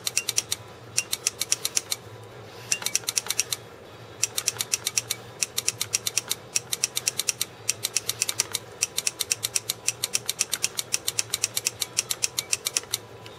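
Rapid sharp clicking, about ten ticks a second in runs broken by short pauses, as an electric etcher's etchant-soaked swab electrode is tapped on a stencil over a stainless steel blade during electrochemical etching.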